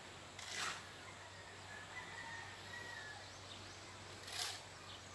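Quiet rural outdoor ambience: a faint steady hiss with two brief rushes of noise, about half a second in and near the end. Faint thin high calls come twice around the middle.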